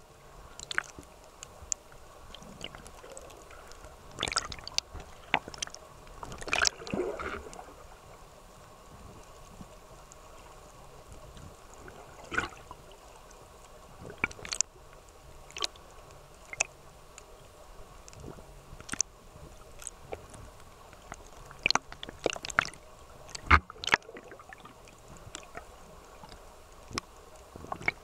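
Muffled water sound picked up underwater around a swimming snorkeler, with scattered sharp clicks and pops. The clicks come in a cluster a few seconds in and again near the end.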